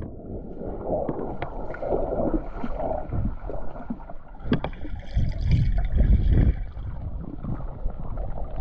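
Muffled underwater sound picked up by a submerged camera: an uneven rush of water moving around the camera, with scattered clicks and knocks.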